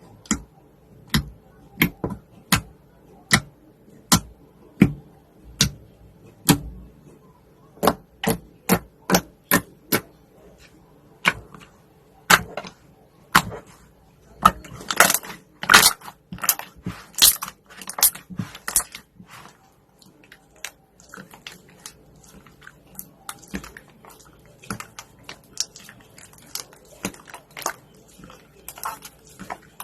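Slime being squeezed and poked, making a run of sharp pops and crackles. The pops come singly, about one a second, at first, bunch up louder in the middle, then turn into softer, quicker crackling.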